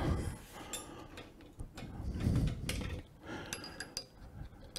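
Faint clicks and light metallic taps as a steel pen mandrel and its fittings are handled in a small wood lathe. A soft knock comes a bit over two seconds in, and a few clicks about three and a half seconds in ring briefly.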